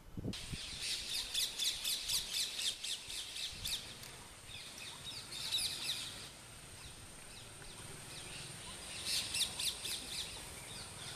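Small birds chirping in quick, rapid runs of short high calls: a long run at the start, a short one midway and another near the end, over a faint steady high-pitched tone.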